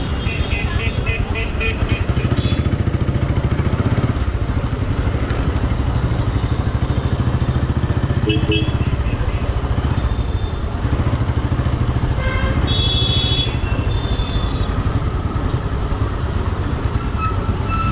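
Royal Enfield Thunderbird 350's single-cylinder engine running steadily as the motorcycle rides through traffic. Short horn blasts from other vehicles sound about eight seconds in and again, longer, around thirteen seconds, with a rapid string of beeps at the very start.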